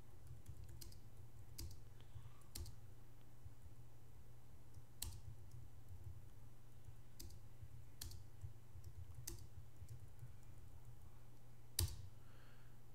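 Computer keyboard keys clicking as text is typed, a single key at a time at an irregular pace, with one louder click near the end, over a steady low hum.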